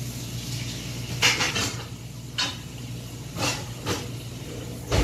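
A small pot scraping on a stainless steel counter as it is handled and turned: several short scrapes, a little over a second in and again past two and three seconds, then a thump at the end, over a steady low hum.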